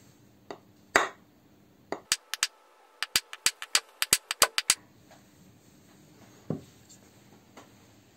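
Cast-iron Mini brake master cylinder knocked on the bench and rapped with a wooden block: a single knock, then about fifteen sharp taps at around five a second with a short break, then one more knock near the end.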